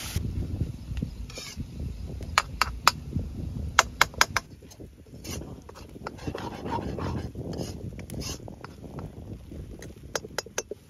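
Metal ladle stirring and scraping frying onions in a metal kadhai, knocking sharply against the pan several times: a quick run of knocks between about two and four seconds in, and a few more near the end.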